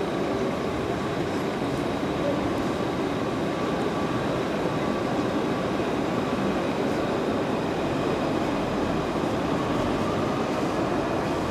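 An electric low-floor tram running along a riverside quay, a steady rumbling hiss of city traffic noise with a faint whine, without breaks.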